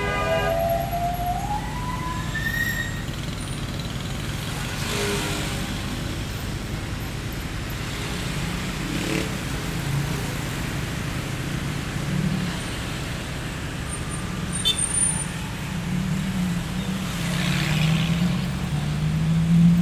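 Street traffic ambience: a steady low rumble of road traffic with several vehicles passing, and a low engine hum building in the second half. A brief rising, pitched, siren-like tone sounds in the first couple of seconds.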